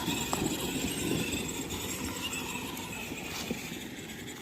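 Children's 24-volt electric ride-on car driving over rough ground, its sound slowly fading as it pulls away.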